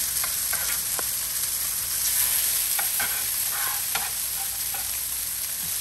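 Skinless salmon fillets, oiled and seasoned, sizzling steadily as they sear in a very hot pan on high heat, with scattered small crackles and pops.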